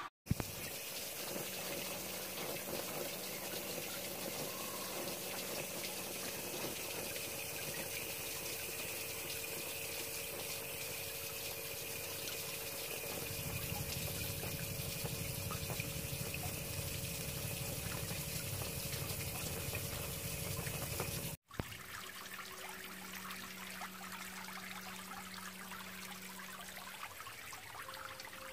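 Water running steadily in a koi spawning tank, a continuous hiss with a faint low hum beneath it. It drops out for an instant just after the start and again about two-thirds of the way through.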